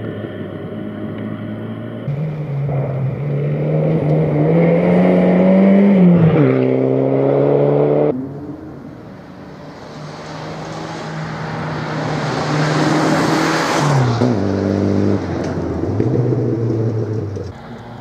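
Mitsubishi Galant VR4 rally car's turbocharged four-cylinder engine driven hard on a gravel stage: the revs climb and then drop sharply at each gear change, several times over. Around the middle a loud hiss of tyres and gravel takes over as the car passes close by.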